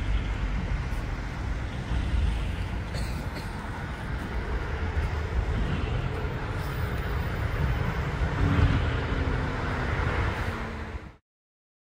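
City street traffic: a steady wash of passing cars and other vehicles with a low rumble, cutting off abruptly near the end.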